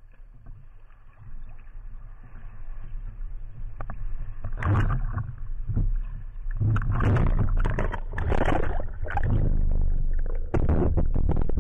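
Sea water sloshing and splashing over a speargun-mounted camera riding at the waterline, with a low rumble underneath. The splashing comes in irregular surges that grow louder from about four and a half seconds in.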